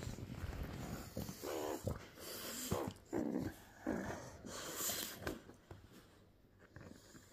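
Bulldog grunting and snorting through its short muzzle in short, irregular bursts as it noses and tussles with a meerkat.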